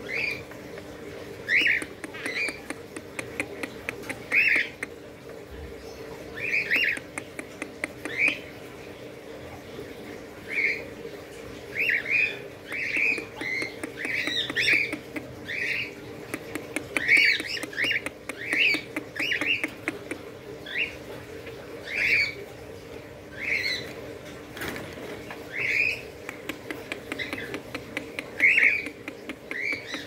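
Young cockatiels giving short, harsh squawks, one every second or so in irregular runs, over a steady low hum.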